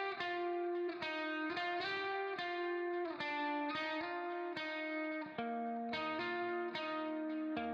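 Background music: plucked guitar notes played one after another in a steady melody.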